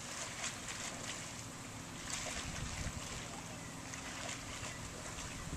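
Wind blowing across the camcorder's microphone outdoors: a steady rushing hiss with an uneven low rumble.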